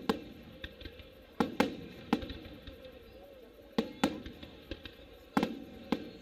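Aerial firework shells bursting: a run of about eight sharp bangs at uneven spacing, some in quick pairs, each trailing off briefly.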